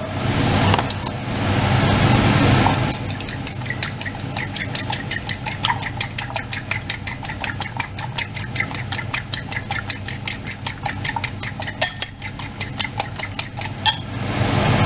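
Metal fork beating two eggs in a white ceramic bowl, clicking against the bowl about five times a second. The clicking starts about three seconds in and stops near the end, over a steady low hum.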